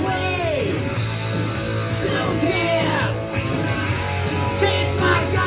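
Rock song with guitar playing from a vinyl record.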